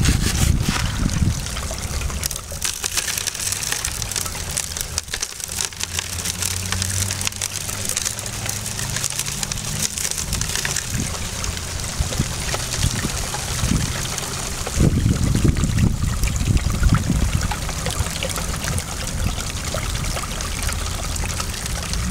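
Water running and sloshing over a green plastic riffled gold-cleanup tray, washing muddy gold concentrates across the riffles. A steady rushing trickle that gets louder for a couple of seconds past the middle.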